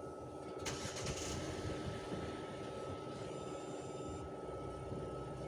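A machine running with a steady hum and a constant high whine. About two-thirds of a second in there is a sharp click, followed by a short hiss.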